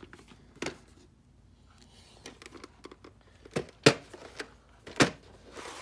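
Hard plastic VHS clamshell case being handled: a few sharp clicks and knocks, two close together about three and a half seconds in and another about five seconds in.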